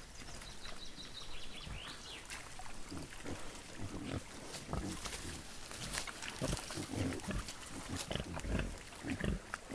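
Several wild boar, adults and young, grunting over and over in short, low, irregular grunts while rooting and feeding in wet mud.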